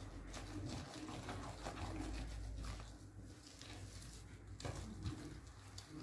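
Soft scraping of a spatula folding cocoa powder and flour into whipped egg batter in a glass bowl, with a pigeon cooing softly in the background.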